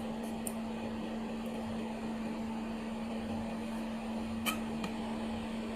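Insulation pin welding machine giving a steady electrical hum on one low tone, with a single short sharp click about four and a half seconds in.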